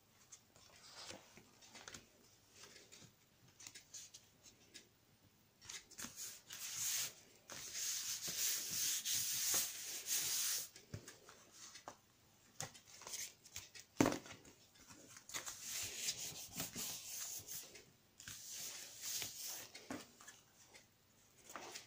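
Paper and card being glued and pressed together by hand: soft rubbing and rustling in several spells, with small clicks and one sharp knock about two-thirds of the way through.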